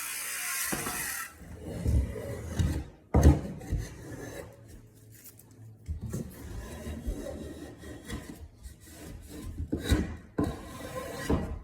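Cedar board being handled and worked by hand: irregular wooden knocks and rubbing, scraping strokes, with one sharp knock about three seconds in. A steady hiss stops about a second in.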